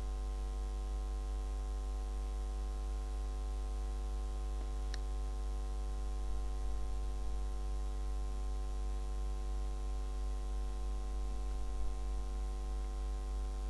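Steady electrical mains hum with a ladder of even overtones and no other sound, apart from a single faint tick about five seconds in.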